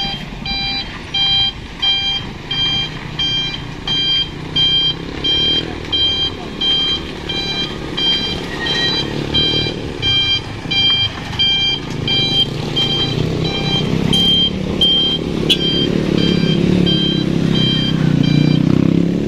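Truck reversing alarm beeping steadily, about one and a half beeps a second, over the truck's diesel engine running; the engine grows louder near the end as the beeping stops.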